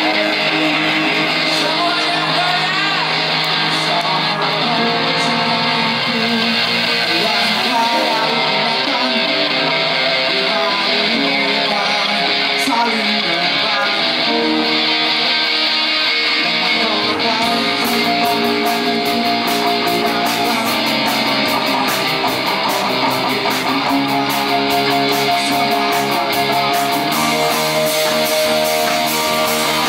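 Live band playing amplified music led by electric guitars, with bass and keyboard. Just past halfway, quick cymbal or hi-hat strokes join in.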